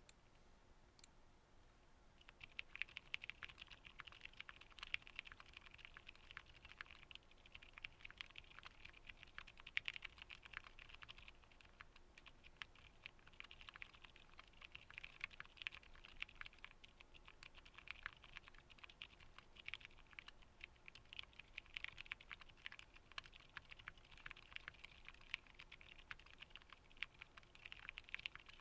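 Fast, continuous typing on a fully foamed Wind X65 mechanical keyboard with Zilent silent tactile switches, GMK Redacted keycaps and a Tealio-switched spacebar: soft, muted keystrokes, starting about two seconds in.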